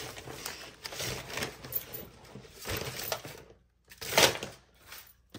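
Laminated plastic offcut strips being scooped up by hand, giving irregular plastic rustles and clatters. The loudest comes about four seconds in.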